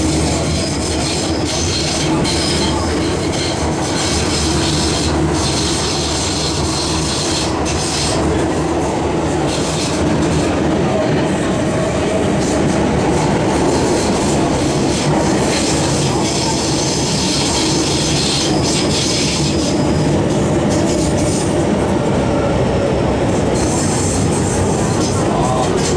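Interior of a moving MTR metro train: a steady rumble of wheels on rails with a constant hum, and high-pitched wheel squeal that comes and goes as the train runs through curves.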